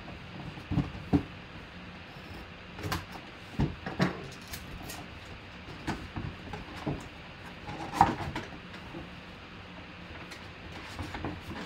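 Cardboard box being handled and opened by hand: scattered knocks, rubs and scrapes of cardboard and paper, the loudest knocks about a second in and about eight seconds in, over a low steady hum.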